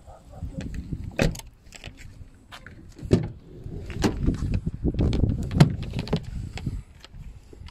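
Irregular clicks, knocks and low rumbling of a plastic hand pump sprayer being handled and pumped close to the microphone.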